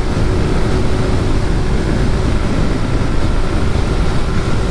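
Suzuki Address 110 scooter's single-cylinder engine running at a steady speed, a steady engine note under heavy wind rush on the microphone.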